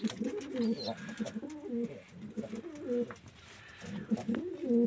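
Several domestic pigeons cooing in a small wooden loft: overlapping low, warbling coos, with a short lull about three and a half seconds in.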